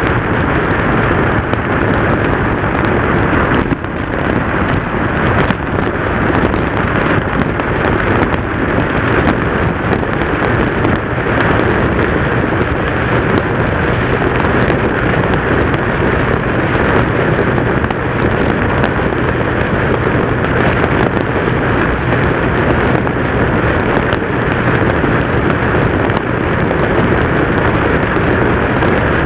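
Yamaha TDM parallel-twin motorcycle running at steady cruising speed, its engine drone mixed with heavy wind rush on the on-board camera's microphone. There is a brief dip in level about four seconds in.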